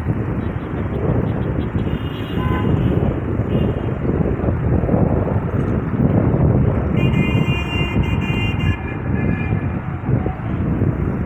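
Heavy construction machinery running steadily with a low rumble. A high tone with several overtones sounds for about two seconds, about seven seconds in.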